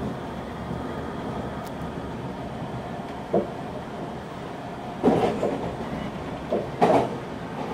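Semboku 5000 series electric train running, heard from inside the front car: a steady rumble of wheels on rail, with loud clacks over the rail joints from about three seconds in, bunched together near the end.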